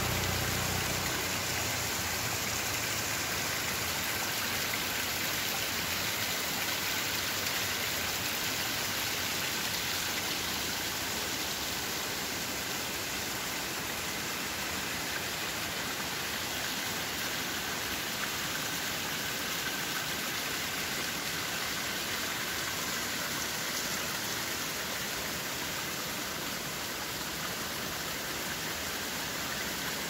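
Water of a small waterfall running and splashing down a rock face, a steady hiss.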